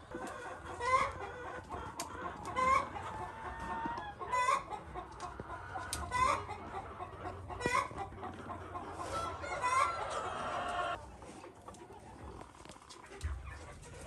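Hens clucking: about six loud, falling calls repeated every second and a half to two seconds, over a steady background noise that drops away about eleven seconds in.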